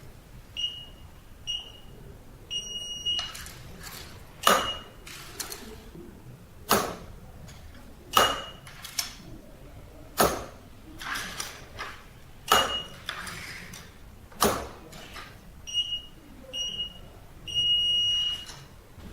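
Touch-keypad access controller beeping: a run of short high beeps, with a longer beep about three seconds in and another near the end. Sharp taps and clicks on the panel, louder than the beeps, come every couple of seconds as cards are swiped at the reader.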